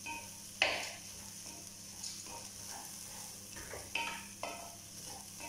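Raw rice sizzling as it is sautéed in a pot before the water goes in, with a wooden spoon stirring it. Short scrapes and knocks of the spoon against the pot come several times, the loudest about half a second in.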